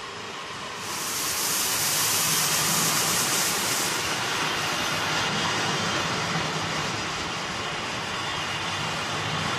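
Double-deck regional passenger train running past along the platform, driving cab car leading. A loud hiss starts as the front of the train reaches the microphone about a second in and eases after about four seconds. Then comes the steady rumble of the double-deck carriages rolling by.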